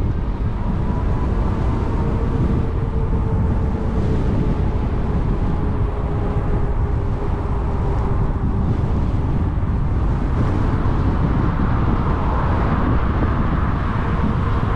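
Wind buffeting the microphone of a moving e-bike, a steady low rumble, with a faint steady whine underneath.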